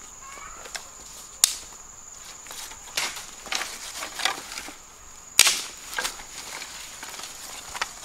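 Dry sticks and twigs snapping and cracking as they are broken and gathered by hand, irregular sharp cracks with the loudest about five and a half seconds in. A steady high-pitched insect drone runs underneath.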